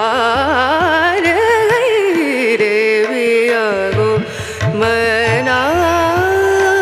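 Background music in an Indian classical style: a sliding, ornamented melody line over a steady low drone, with light percussion.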